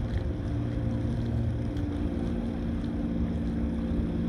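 Low, steady machinery hum of a passing cruise ship, made of several held tones over a rumble, with wind on the microphone.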